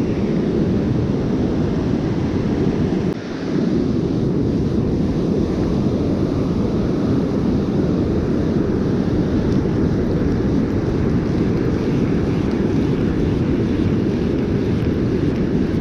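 Steady wind rumbling on the microphone, mixed with the wash of surf, dipping briefly about three seconds in.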